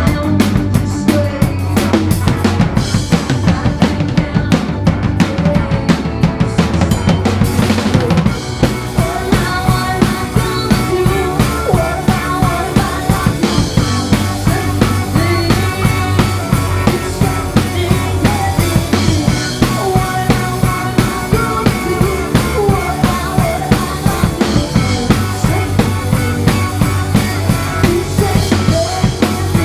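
Live band playing, driven by a drum kit's steady kick-and-snare beat under bass and a wavering melodic line.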